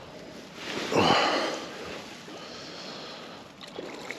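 A man's short, breathy wordless exclamation, falling in pitch, about a second in, from an angler playing a hooked trout; otherwise a faint steady hiss.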